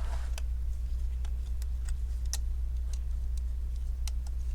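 Scattered light clicks and taps of small laptop parts and connectors being handled during disassembly, over a steady low hum.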